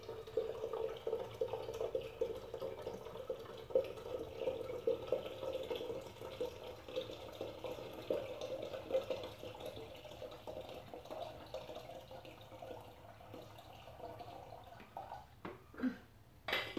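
Water pouring in a steady stream from a plastic filter pitcher into a stainless steel pot, growing quieter toward the end and stopping, followed by a few sharp knocks.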